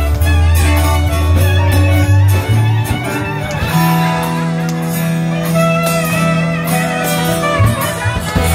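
Live band music led by guitar over sustained bass notes and a steady beat.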